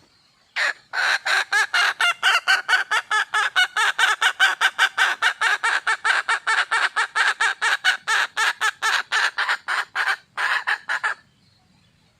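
Red junglefowl (wild) hen calling for a mate: a rapid, even run of short clucks, about four or five a second, starting about half a second in and lasting some ten seconds, with a brief break shortly before it stops.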